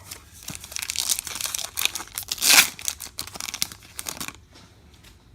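Trading-card pack wrapper crinkling and being torn open: a dense run of crackles with the loudest rip about two and a half seconds in, dying away after about four seconds.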